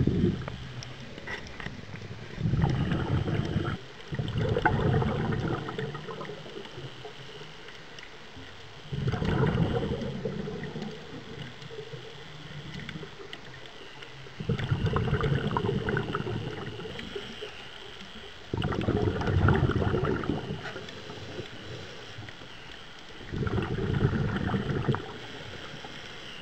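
A scuba diver's exhaled bubbles from the regulator, underwater: bubbling bursts of one to two seconds that recur every four to five seconds in a breathing rhythm, with quieter gaps between.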